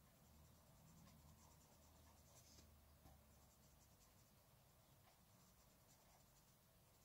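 Faint scratching of a Derwent Inktense pencil shading on paper, in quick short strokes several times a second.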